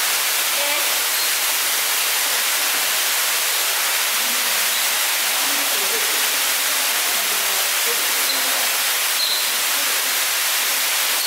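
Steady rushing hiss of running water, with no break or change, and faint indistinct voices underneath.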